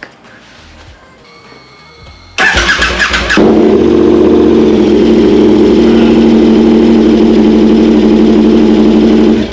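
KTM 1290 Super Adventure S's V-twin engine, run with its silencer removed: the starter cranks it about two and a half seconds in, it catches after about a second and idles very loud and steady through the open pipe, then cuts off right at the end.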